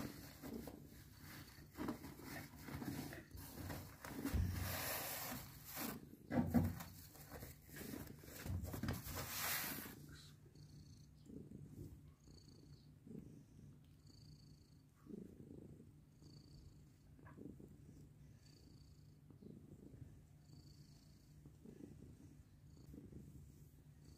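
Domestic cat purring steadily while kittens nurse. Louder rustling against fur in the first half.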